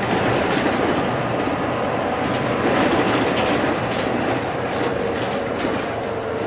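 Inside a moving city bus: the engine drones steadily under road and tyre noise, with scattered light rattles from the bus's fittings.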